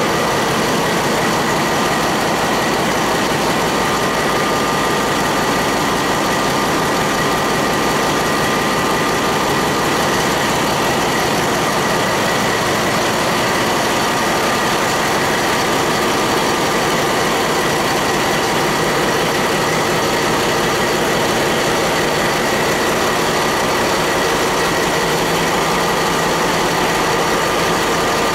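Ship's engine room dominated by a GE 7FDM12 V12 marine diesel main engine running steadily and loud, with steady high whines over its deep pulsing din.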